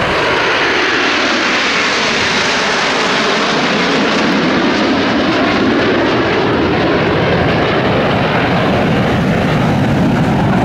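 A formation of Aermacchi MB-339 PAN jet trainers flying past, their Rolls-Royce Viper turbojets making a loud, steady jet noise that falls in pitch as the formation goes by.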